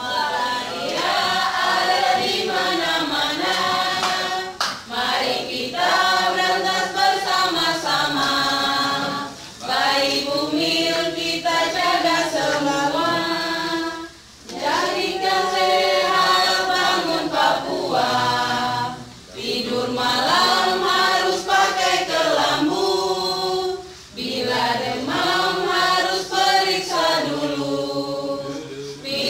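A group of men and women singing together, in sung lines a few seconds long with short breaks between them.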